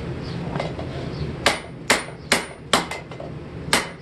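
Hand hammer striking a hammer head on an anvil to straighten it: a few light taps, then from about a second and a half in a series of sharp ringing blows roughly every half second, over a steady low hum.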